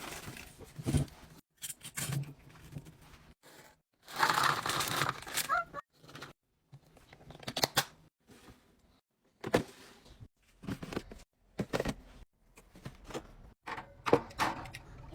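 Plastic packaging crinkling and tearing as snacks and groceries are unpacked, in short separate bursts, with sharp clicks and taps of items being handled and set down.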